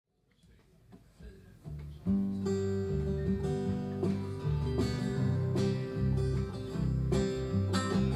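Live acoustic country band playing an instrumental intro: acoustic guitar strumming over a low bass line. The music comes in faintly and reaches full volume about two seconds in.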